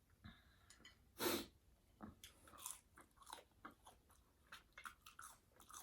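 A person biting into crispy fried fast food, one louder crunch about a second in, then a run of small crunching chewing sounds close to the microphone.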